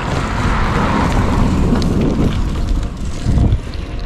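Wind buffeting the microphone of a moving bicycle rider, with a car going past that swells and fades about one to two seconds in.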